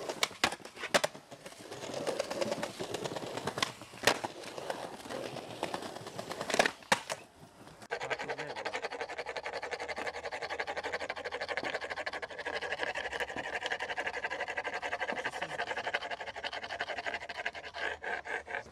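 Skateboard tricks: a few sharp pops and landings with wheels rolling on stone. About eight seconds in this gives way to a steady, rapid scraping.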